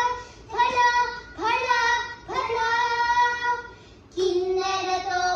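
Two young girls singing a Telugu song together in long held notes, phrase by phrase, with a short breath pause about four seconds in.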